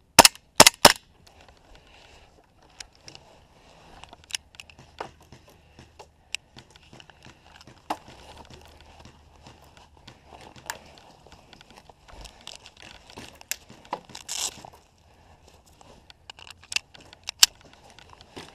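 Gas blowback airsoft pistols firing: a quick string of about four shots in the first second, then scattered single shots, a short hiss about 14 seconds in, and two more loud shots near the end, with rustling of players moving in between.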